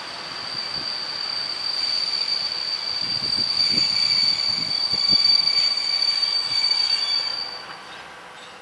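Passenger train behind a class 754 'Nurek' diesel-electric locomotive rolling slowly, its wheels giving a steady high-pitched squeal, with a few knocks of wheels over rail joints about three to five seconds in. The squeal fades out about seven and a half seconds in.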